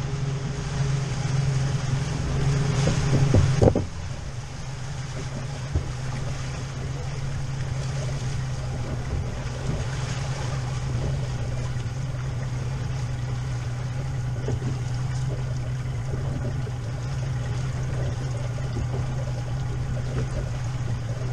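Outboard motor running at low speed with a steady low hum, with water rushing along the hull and wind over it. The rushing is louder for the first four seconds or so, then drops suddenly to a steadier level.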